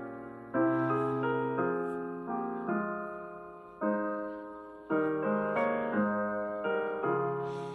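Slow, gentle piano music: soft chords struck about once a second, each left to ring and fade.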